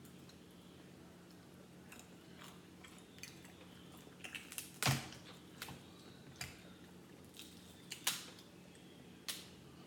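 Crab leg shells cracking and snapping as they are broken apart by hand, with a few sharp cracks (the loudest about halfway through) among quieter crunching and clicking, and some chewing.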